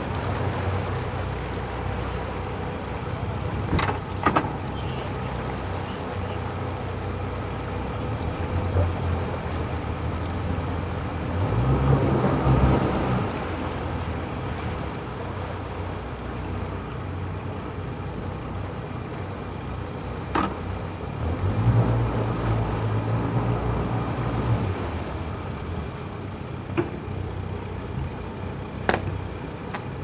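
Motorboat engines idling and running at low speed, a steady low hum that swells louder twice, about twelve and about twenty-two seconds in. A few short sharp knocks are scattered through.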